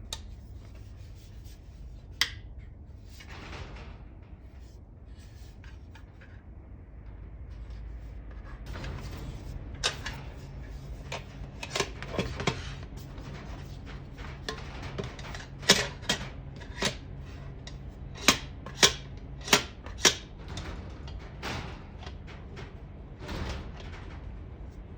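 Bundock aluminium mess tin (hangō) being handled: scattered sharp clicks and clinks of metal parts. A quick run of louder clicks comes about 16 to 20 seconds in.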